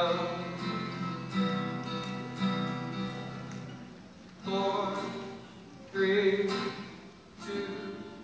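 Acoustic guitar chords strummed and left to ring, with a male voice singing short phrases between them, performed live into a microphone.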